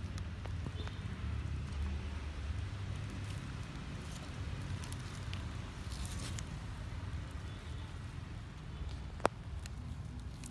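Outdoor background noise: a steady low rumble with faint rustling and light clicks, and one sharp click about nine seconds in.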